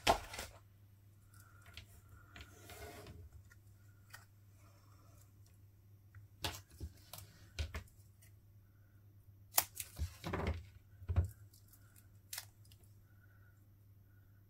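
Scattered small clicks and taps with a short rustle about three seconds in: paper and small craft tools being handled on a desk.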